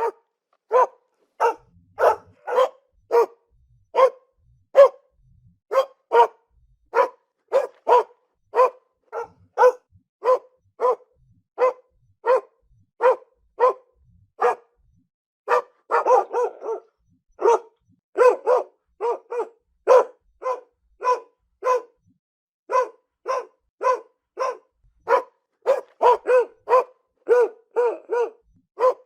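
A dog barking over and over in short, single barks of much the same pitch, about one to two a second, with a couple of brief pauses and a quick run of barks about halfway through.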